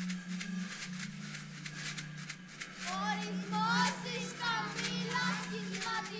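Children's homemade music piece: quick taps and clicks of small hand percussion over a steady low drone. About halfway through, high children's voices come in, gliding up and down in short singing calls.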